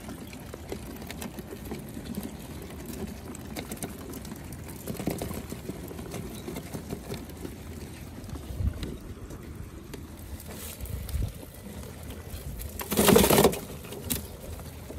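Live crawfish shifting and clicking in a plastic cooler, with scattered faint clicks over a low rumble. A brief, louder rustling burst comes about thirteen seconds in.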